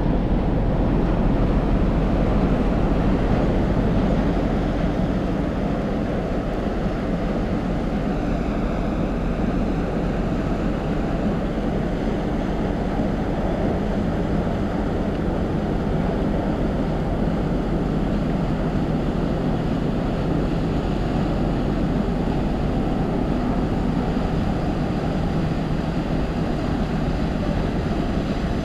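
The car ferry Kuniga's diesel engines and propellers running in a steady deep drone as she manoeuvres close alongside the quay, with water churning at the stern. A faint high whine comes in about eight seconds in.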